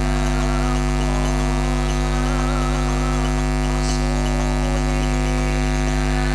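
Loud, steady electrical mains hum in the sound system's mixer feed, with a faint wavering voice underneath.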